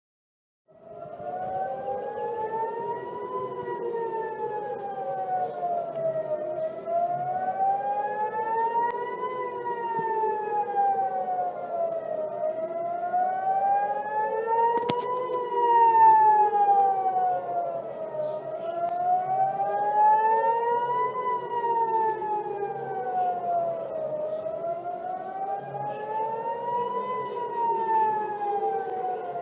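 Civil-defence emergency warning siren wailing, starting just under a second in, its pitch rising and falling in slow sweeps about every six seconds. A second siren tone sweeps the opposite way, so the two cross.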